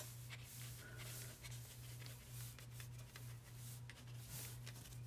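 Faint scratching of a pen drawing short strokes on watercolor paper, over a steady low hum.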